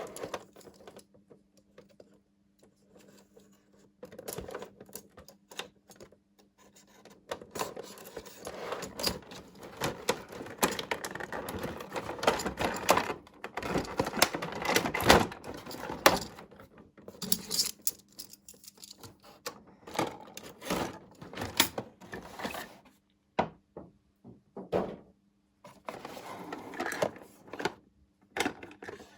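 Unboxing a miniature toy tea pot set: small hard pieces clicking, tapping and scraping against each other, with some rustling, in irregular bursts.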